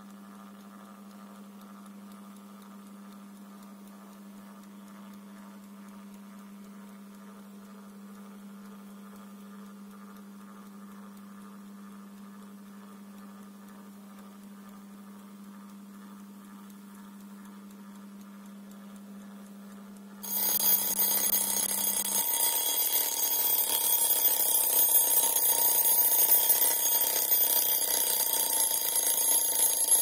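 A faint steady low hum, then about twenty seconds in the alarm of a 1958 Jaz Forzic folding travel alarm clock starts suddenly and rings continuously and loudly.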